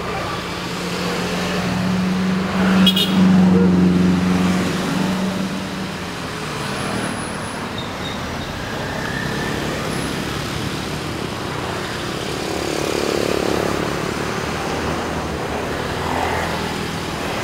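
A convoy of vans, motor scooters and motorcycles driving past one after another, engines running over tyre noise on the road. It is loudest a few seconds in as vehicles pass close, with one brief sharp sound about three seconds in.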